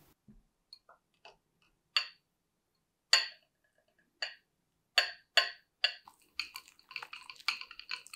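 Sharp clinks of a ceramic mixing bowl knocking in a glass bowl of ice water as chocolate ganache is stirred with a spatula to cool it. Single clinks every half second to a second, then a quicker run of clinks near the end.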